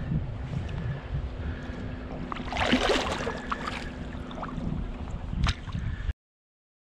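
Wind rumbling on the microphone over lapping shallow water, with a loud splash about three seconds in and a sharp click about five and a half seconds in. The sound cuts off suddenly about six seconds in.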